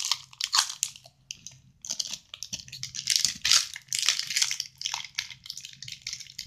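Plastic sweet wrappers crinkling and rustling in irregular handling bursts as they are opened.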